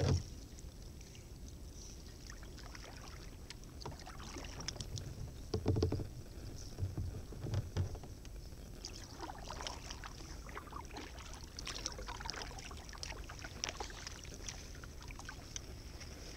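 Kayak being paddled through calm water among floating ice: light trickling and scattered small ticks of water, with a few low knocks about midway.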